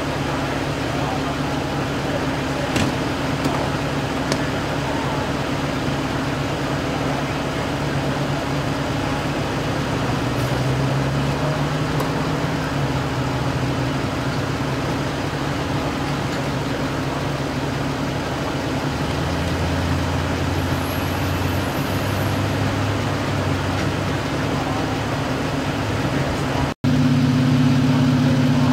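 Engines of emergency vehicles idling beside the stretcher: a steady low hum whose tones shift slightly. There is a brief dropout near the end, followed by a louder steady idling hum.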